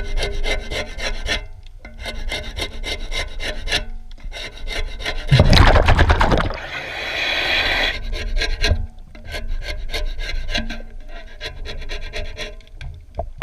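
A boat hull being scraped and scrubbed in the water during bottom cleaning: bursts of rapid rasping strokes a few seconds long, with short pauses. A louder rushing noise comes about halfway through.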